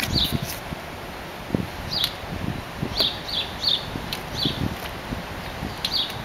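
Birds chirping in short, high, down-slurred notes, singly and in quick clusters, over low irregular thumps and rumbling.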